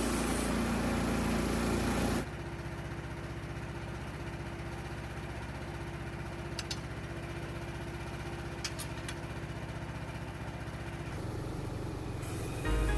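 Small gasoline engine of a portable band sawmill running, loud for about the first two seconds, then dropping suddenly to a steadier, quieter idle with a few light clicks; it picks up loudly again near the end.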